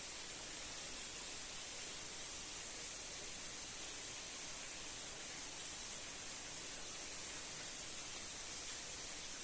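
Steady, even hiss, strongest high up, with no calls, clicks or other events in it.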